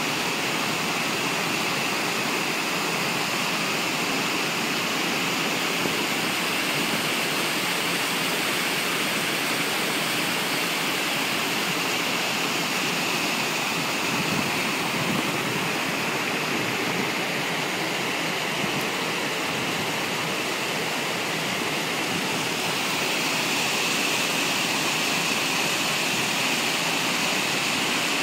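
Waterfall pouring steadily into a pool: a continuous, even rush of falling water.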